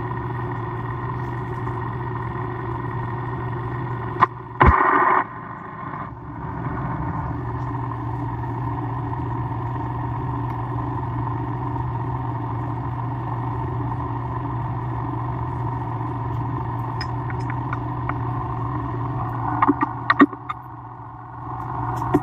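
A workshop machine tool's motor running steadily with a constant hum. A loud, harsh burst of about a second comes about four seconds in, and a few sharp clicks and clatters come near the end.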